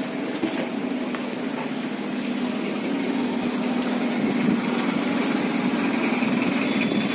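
SOR NB 12 city bus's diesel engine running close by, a steady hum with a low tone that grows slightly louder over the last few seconds.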